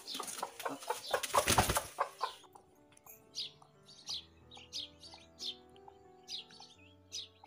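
A broody hen beating her wings hard for about two seconds as she is lifted off her eggs. Then soft background music with high bird chirps.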